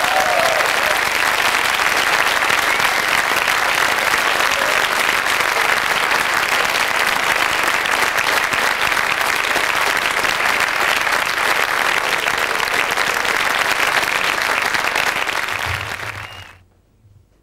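Theatre audience applauding: dense, steady clapping that stops abruptly near the end.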